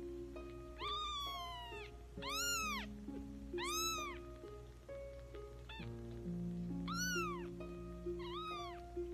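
Very young kittens mewing: about six high, short cries, each rising and then falling in pitch, spaced a second or so apart. Background music with sustained notes plays underneath.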